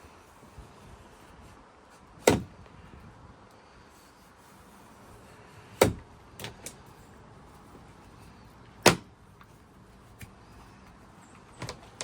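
Three sharp knocks about three seconds apart, with a few lighter clicks between, from hands-on work fitting vinyl plank flooring.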